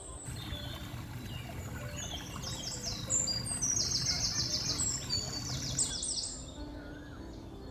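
Songbirds chirping and trilling: quick runs of high, repeated notes, loudest in the middle and dropping away about six seconds in. Faint background music sits underneath.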